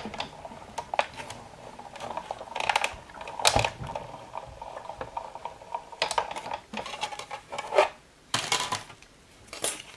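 Plastic clicks and knocks of a hand-cranked Sizzix Big Shot die-cutting machine as its acrylic cutting plates are fed in and rolled through, pressing a thin metal die through EVA foam. The loudest knock comes about three and a half seconds in, with more clacks near the end as the plates come out.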